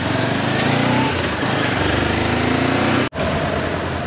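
Honda CB400X motorcycle's parallel-twin engine running under way, its pitch climbing slightly, with the sound cutting out for an instant about three seconds in.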